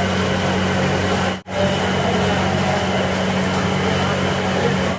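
Steady sizzling and scraping of masala gravy being worked with metal spatulas on a large hot flat iron griddle (tawa), over a steady low kitchen hum. The sound cuts out briefly about one and a half seconds in.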